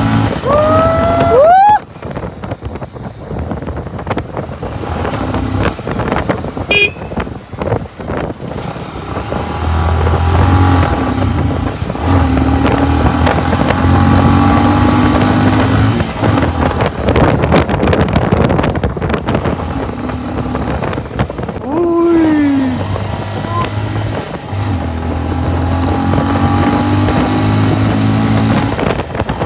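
Motorcycle and scooter engines running during a road ride, a steady hum under much road noise. A brief rising tone sounds near the start and a falling one about 22 seconds in.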